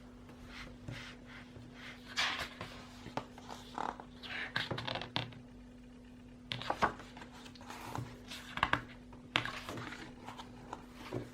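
Paper and plastic rustling as a CD album's photobook and packaging are handled and its pages turned, with a few light clicks and knocks, over a faint steady hum.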